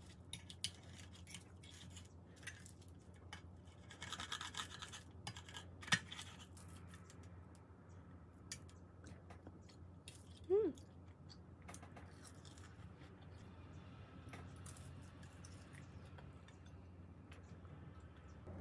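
Knife and fork cutting and scraping on a plate while eating, with small clinks throughout, a longer scrape about four seconds in and a sharp clink at six seconds. About ten and a half seconds in comes a short squeak that falls in pitch, the loudest sound here, over a faint steady low hum.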